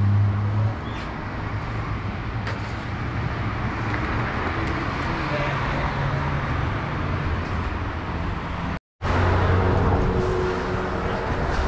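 Street traffic noise: vehicles passing and a motor vehicle engine running close by with a low, steady hum. The sound cuts out for a moment about nine seconds in.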